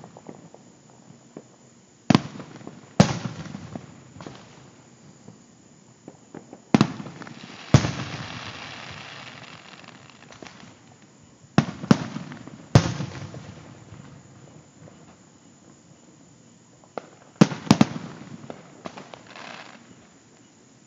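Aerial fireworks shells bursting, heard from a distance: about nine sharp booms spread irregularly, some in quick pairs, each trailing off in a rumbling echo. After one burst about eight seconds in, a couple of seconds of hiss follows.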